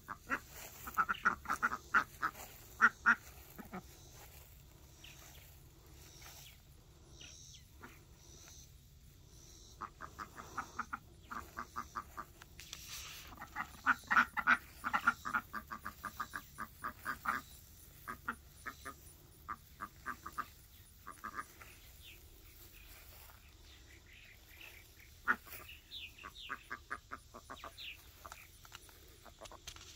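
A small group of domestic ducks quacking in bouts of quick, short calls, several a second, with quieter gaps between the bouts.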